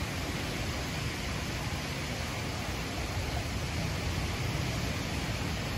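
Steady rushing noise of a thunderstorm's heavy rain and wind, even throughout.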